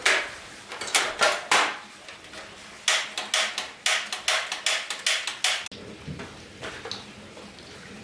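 A run of irregular knocks and clatters of hard objects striking, about a dozen sharp hits over five or six seconds, then only a few fainter ones.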